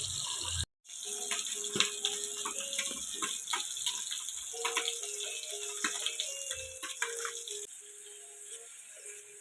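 Running tap water, cut off abruptly under a second in, followed by a simple background melody of stepping notes with frequent sharp clicks and rattles; the clicks stop about three-quarters of the way through and the melody carries on more quietly.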